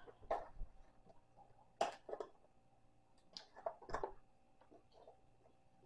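Faint handling sounds of a carton of broth being opened: a few short clicks and rustles as the plastic screw cap is worked off the spout.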